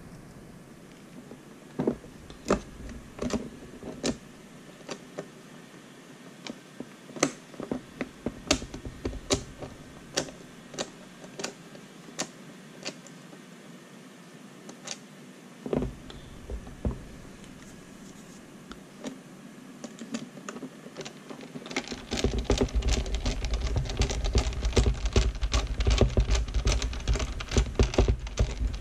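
Sharp, scattered clicks and taps of a screwdriver working screws into the plastic case of a Turnigy TGY-i6 RC transmitter, with the case being handled. About three-quarters of the way through, the clicking turns into a dense, louder clatter.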